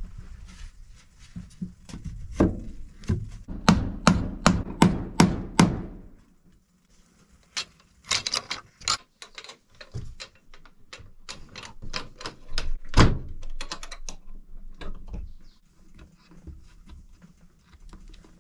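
Knocking and thumping on wooden boards during hand woodworking. About two seconds in comes a quick run of sharp knocks at two to three a second, then scattered lighter clicks and knocks with one heavy thump.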